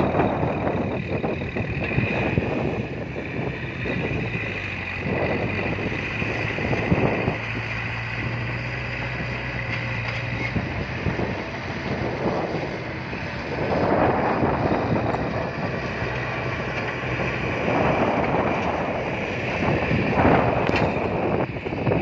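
Caterpillar crawler bulldozer's diesel engine running steadily as it works the dirt piles. Gusts of wind hit the microphone several times.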